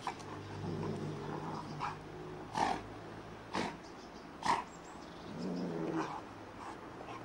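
Two Rottweilers play-fighting, growling low and rumbling, with three short, sharp cries in the middle, the last the loudest.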